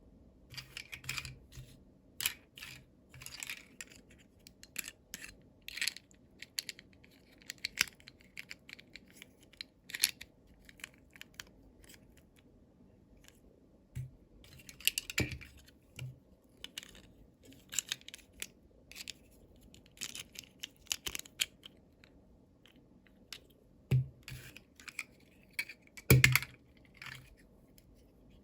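Small clicks, crinkles and rustles of toy packaging being handled and opened, with a few louder knocks, the loudest a little before the end.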